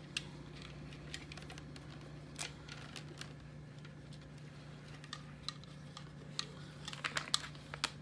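Faint, scattered small clicks and taps of a handheld radio and its cables being handled, more frequent near the end, over a steady low hum.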